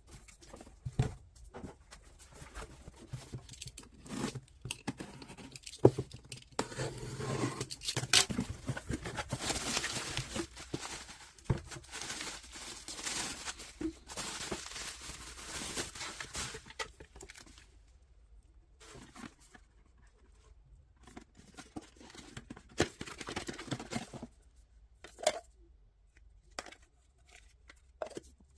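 Packaging being handled and torn open: scattered clicks and knocks, with longer stretches of rustling and tearing in the middle.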